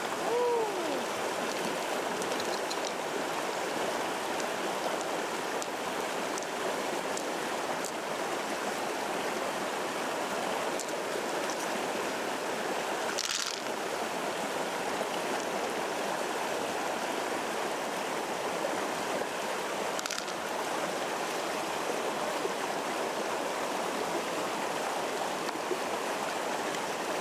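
Steady rushing of flowing water, like a stream, at an even level throughout. A couple of faint short ticks are heard about halfway through and again later.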